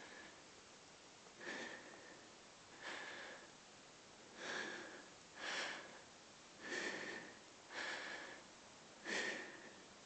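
A person's breathing close to the microphone: short hissy breaths in and out, about one every second or so, each carrying a faint whistle.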